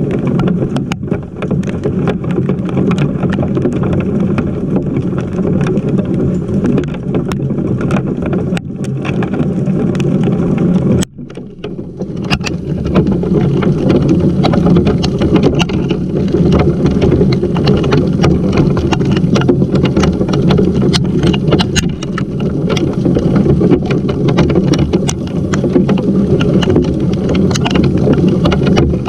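Heavy rain and hail pelting a GoPro camera left out in the storm: a dense, low, steady rumble of striking drops with scattered sharp ticks of individual impacts. The noise drops away for a moment about eleven seconds in, then comes back.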